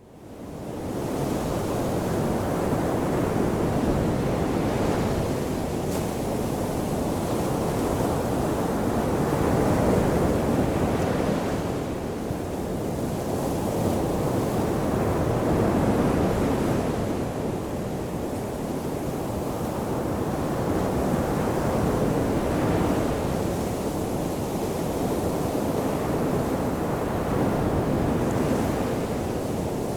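Ocean waves washing onto a shore: a steady rushing surf that swells and eases about every six seconds, fading in over the first second.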